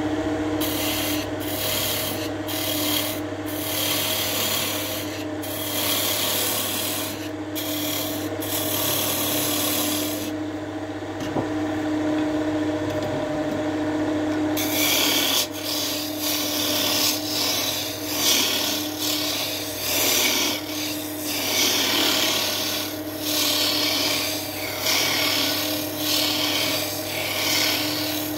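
Wood lathe running with a steady hum while a hand-held tool rasps against the spinning wood in repeated passes, broken by short gaps. The high rasping thins out for about four seconds around the middle.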